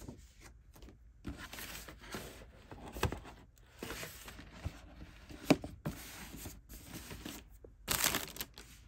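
Tissue paper rustling and crinkling in irregular bursts as it is handled and pulled out of a cardboard shoebox, loudest near the end. A single sharp knock about five and a half seconds in.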